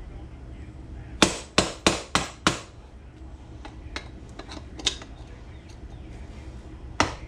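Hammer blows on metal: five sharp strikes in quick succession about a second in, each with a short ring, then two more near the end.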